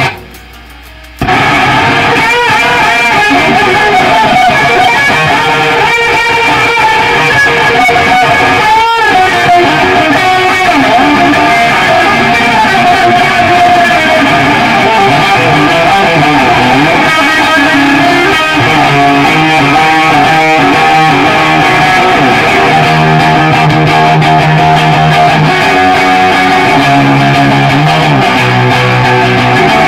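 1977 Fender Stratocaster electric guitar played in a hard-rock style. It opens with a gap of about a second, then runs as continuous loud riffing and lead lines, with low held notes near the end.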